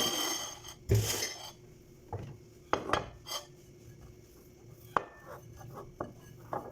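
Metal spoons clattering and scraping against dishes as they are taken out: a scrape and a loud clatter in the first second or so, then scattered single clinks and knocks.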